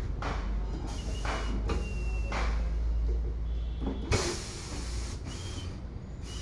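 Steady low hum of workshop machinery with several short hisses of compressed air and a sharp knock about four seconds in, as a motorcycle tyre is worked on a tyre-changing machine.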